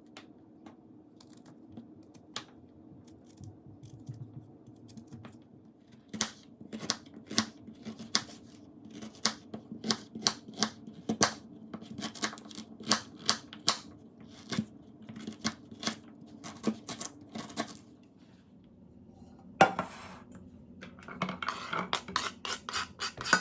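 Knife cutting a piece of ginger root into small pieces on a cutting board: faint scraping at first, then a steady run of sharp cuts against the board. Near the end, a knock and a spell of scraping.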